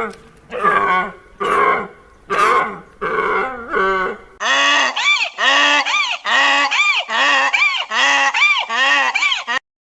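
Animal calls: about six short honking calls at a steady pace, then, after an abrupt cut a little over four seconds in, a faster run of calls that rise and fall in pitch, roughly two a second.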